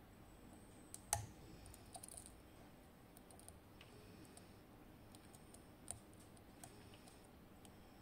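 Scattered faint clicks and light metallic ticks of a steel lock pick and tension tool working the pins of an Assa 700 pin-tumbler cylinder, with the sharpest click about a second in and another near six seconds.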